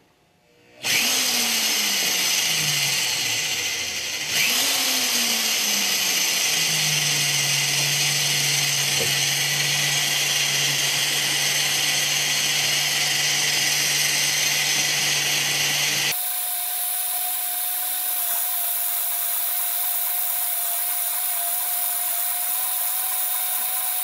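EFCO TD-03 portable lathe running under its motor while a carbide tool bit cuts the valve seat of a steam safety valve, a steady machine drone with cutting noise. Its pitch falls twice in the first few seconds, then holds steady. About two-thirds through the sound shifts abruptly to a higher steady tone.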